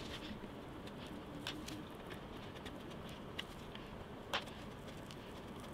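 A few faint, sharp clicks of a small metal tool against a plastic tub as the camera openings are enlarged, the loudest about four seconds in, over a low steady background.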